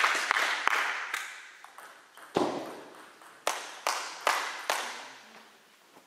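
Clapping dying away over the first two seconds. Then a table tennis ball is bounced: one heavier knock, then four sharp, quick bounces in a steady rhythm, as a server does before serving, echoing in a large sports hall.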